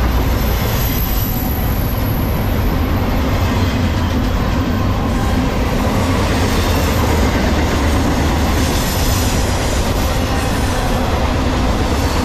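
Norfolk Southern intermodal freight train's well cars loaded with containers and trailers rolling past close by at speed: a steady loud rumble of steel wheels on rail, with a faint high wheel squeal at times.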